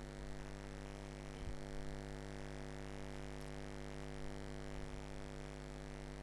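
Steady electrical mains hum with many even overtones, a low buzzing drone, with a few faint small knocks.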